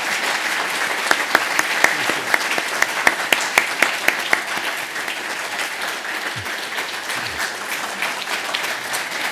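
Audience applauding, steady throughout, with sharp single claps standing out in the first few seconds and the clapping easing slightly after that.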